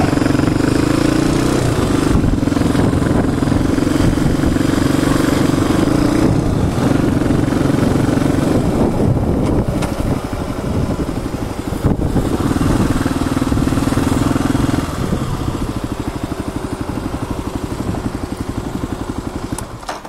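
Motorcycle engine heard from on board, running at steady low revs with short dips as the throttle is eased. Near the end the engine note changes to a slower beat of separate firing pulses.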